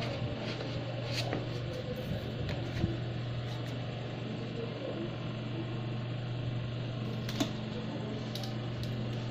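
Steady low mechanical hum, like a small motor or fan running, with a few short light clicks and taps over it.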